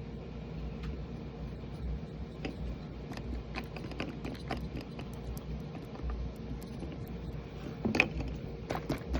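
Scattered light clicks and taps of small objects being handled, over a steady low hum, with a sharper knock about eight seconds in.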